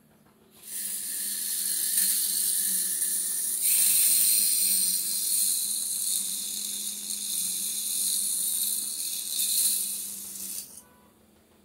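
Bench grinder wheel grinding steel clutch coil springs: a loud, steady hiss that starts about half a second in and cuts off suddenly near the end, over a steady low hum.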